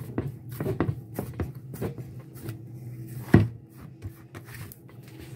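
Hands kneading dough in a steel pan: irregular soft thumps and knocks as the dough is pressed and folded against the metal, with one louder thump a little past three seconds in.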